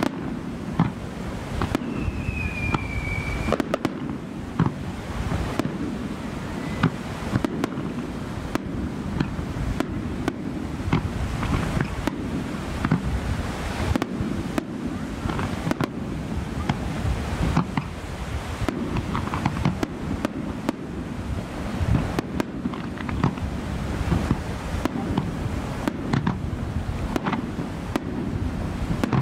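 Fireworks display firing a rapid, continuous barrage: many sharp bangs and crackling from shell bursts and shoreline comets over a constant low rumble, with a brief falling whistle about two seconds in.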